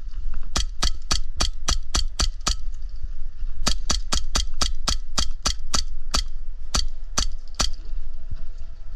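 Airsoft gun firing single shots in quick succession, about four a second: a string of about nine sharp cracks, a short pause, then about fourteen more that slow towards the end, over a steady low rumble.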